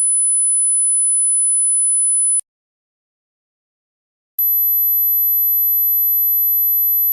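Hearing-test tones: a steady, very high-pitched pure tone stops about two and a half seconds in. After about two seconds of silence, a second steady pure tone, higher still, starts. This is the step-up in pitch used to find the upper limit of a listener's hearing.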